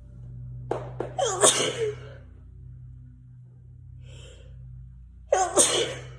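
A person sneezing twice, once about a second in and again near the end, with a short intake of breath between.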